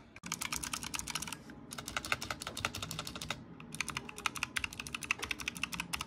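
Typing on a Razer Huntsman Mini 60% keyboard with clicky purple Razer optical switches: fast, continuous keystroke clicks in bursts, with brief pauses about one and a half and three and a half seconds in.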